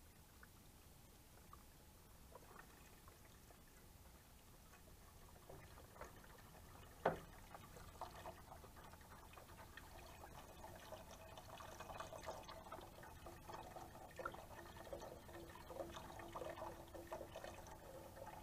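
Chicken broth pouring from a carton into a large stainless steel pot of vegetables, a steady stream starting about eight seconds in and stopping at the end. A single sharp click comes just before the pour begins.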